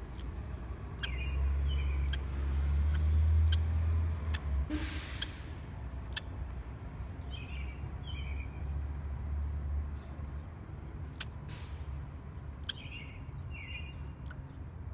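Squirrel chirping: three small clusters of short, high chirps, over a steady low rumble that is the loudest sound, with scattered sharp clicks.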